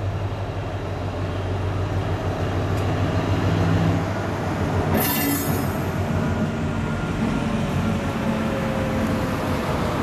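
Class 60 diesel-electric locomotive 60040 moving slowly past at close range, its Mirrlees eight-cylinder diesel engine running steadily and growing louder over the first few seconds as it draws level. A short high-pitched squeal comes about halfway through.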